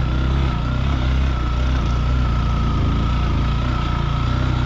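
Motorcycle engine running steadily while riding an off-road track, with a thin steady whine above it.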